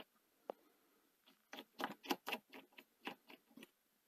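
Screwdriver undoing the centre screw on a Sony SL-C9 Betamax's upper video head drum: one click, then a run of about ten short clicks, roughly four a second, as the screw is turned out.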